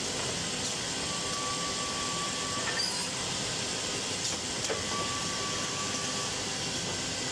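Automatic double-end cutting and boring machine running with a steady mechanical hiss while its vertical drill head bores into a wooden bed rail. A steady whine comes twice, each lasting about a second and a half, with a few sharp clicks.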